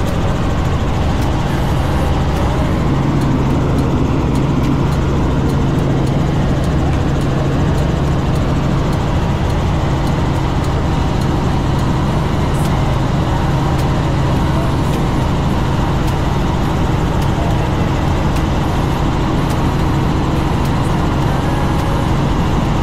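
Light helicopter in cruise flight heard from inside the cabin: engine and rotors running loud and steady, a low hum under dense rushing noise.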